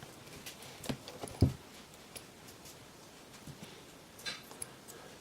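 A few scattered clicks and taps from hands handling a headset, the loudest a single sharp knock about a second and a half in, then a brief soft rustle about four seconds in.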